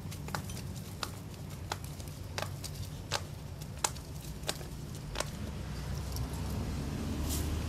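A dog scraping at loose soil while burying a toy: a sharp scratch about every two-thirds of a second, eight in a row. A low rumble swells in the last two seconds.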